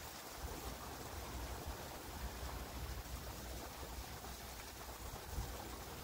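Steady splashing hiss of a thin stream of water pouring from a stone bridge wall onto the ground, with low wind rumble on the microphone.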